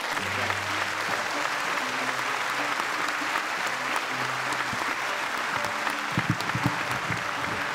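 Audience applauding steadily, with a few soft plucked guitar notes beneath it and some low thumps about six seconds in.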